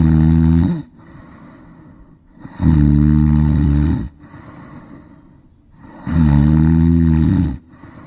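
A person snoring: three long, loud snores with a low buzzing pitch, about three and a half seconds apart, much quieter in between.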